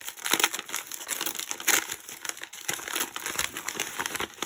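Wrapping crinkling and crumpling in someone's hands as a packaged item is unwrapped, a steady run of small crackles.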